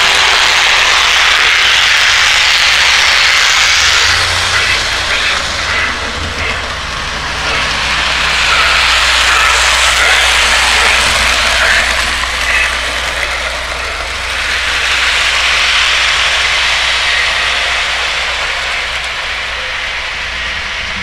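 Model steam train running, with simulated steam chuffing played through a speaker in the locomotive's tender: a loud hissing rush over a low hum that swells and fades three times.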